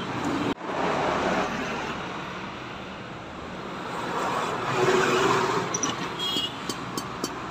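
Road traffic passing by, a steady rush that swells twice as vehicles go past, with a few light clicks near the end.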